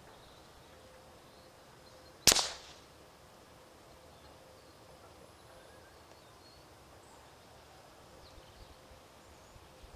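A single shot from a suppressed .22 rimfire rifle firing subsonic rounds, heard from about 60 yards: one sharp crack about two seconds in that dies away within half a second.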